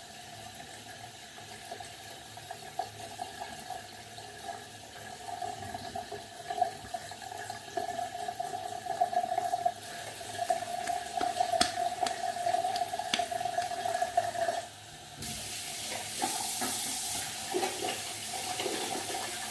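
Tap water running into a bathroom sink, with a steady whistle from the running tap. About fifteen seconds in, the whistle stops and the water changes to a brighter, louder hiss.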